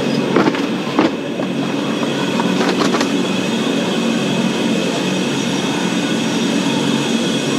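Steady rumble and hum of supermarket background noise, with a few sharp clicks about half a second, one second and three seconds in.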